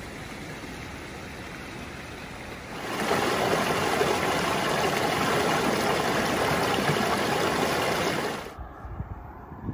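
A shallow, rocky river rushing over stones in small riffles. The sound is steady, grows much louder about three seconds in, and drops away sharply near the end, followed by a few low thumps.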